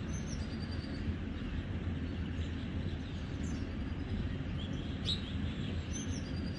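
Faint rural ambience: a steady low rumble with a few short, high bird chirps scattered through it.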